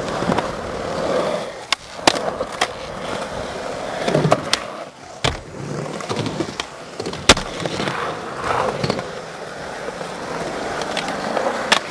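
Skateboard wheels rolling over concrete ramps and bowls, the rolling noise swelling and fading as the rider carves. Several sharp clacks of the board striking the concrete break through it, the loudest about seven seconds in.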